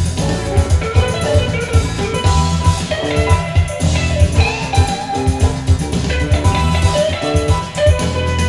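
Recorded music played back through DIY SEAS Bifrost loudspeakers driven by a homemade tube/IC amplifier: a song with a steady beat of drums and bass under bright pitched percussion notes.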